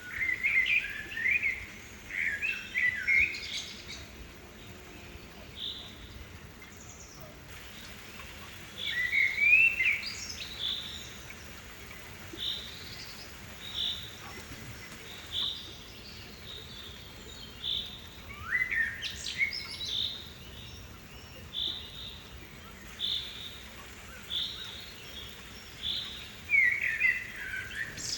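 Songbirds singing: short warbled phrases come every several seconds, and from about ten seconds in one bird repeats a short high note roughly once a second, over a faint steady hiss.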